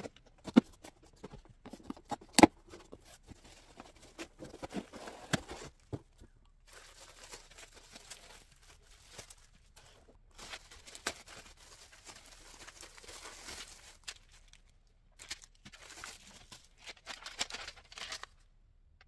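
Unpacking a boxed under-sink shelf kit: sharp knocks and clatter of the parts at first, then long stretches of packaging crinkling and tearing that stop abruptly near the end.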